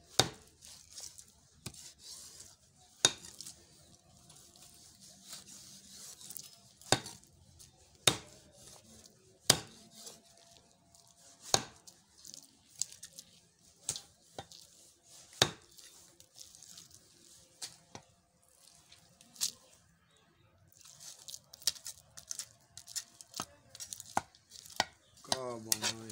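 A large knife chopping through a big fish on a round wooden log block. Sharp knocks ring out as the blade hits the wood, irregularly, about one every one to two seconds, with softer cutting and handling sounds of the flesh between them.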